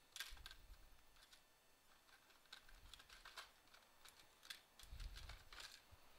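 Faint, irregular light clicks and taps with a few soft low thuds: small hard objects being picked up and handled, as when a SIM eject tool is fetched from a bench.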